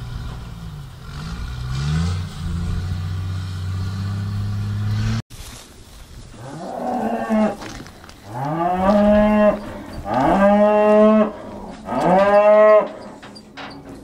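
Cattle mooing: four loud bellows in a row from about six seconds in, each rising at the start and then held for about a second. Before that there is a low steady hum with a lower call gliding over it.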